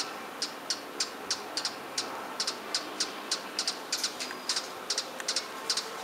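Perched hummingbird calling: a steady run of sharp, high chips, about three to four a second, some in quick pairs, with one brief held high note about four seconds in.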